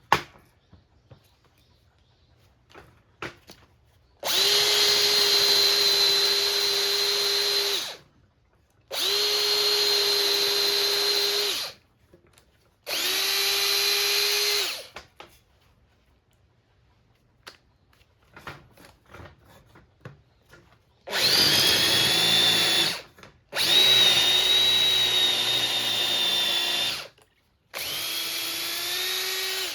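Makita DF458D 18V cordless driver drill, overhauled with new carbon brushes in its brushed motor, run free in six bursts of two to four seconds each with a steady whine. The last three runs waver slightly in pitch.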